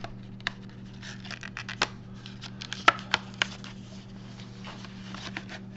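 Cardboard box of a coin proof set being opened by hand: paperboard scraping and rustling with a run of sharp clicks and taps, the loudest about three seconds in.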